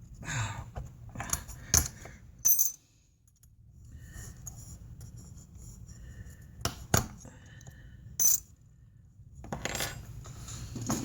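Small metal parts clinking and clicking as an amplifier is taken apart: screws and a small Allen key knocking against the metal chassis and the bench. Several separate sharp clinks, some ringing briefly.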